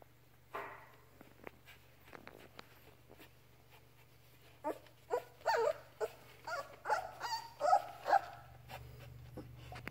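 A very young Labrador puppy whimpering and squealing. About halfway in there is a run of roughly ten short, high cries, a few per second.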